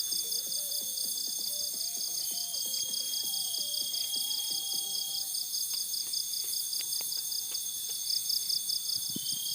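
Chorus of night insects such as crickets, a steady high-pitched trilling with a fast, even pulsing. A faint melody runs underneath for the first half.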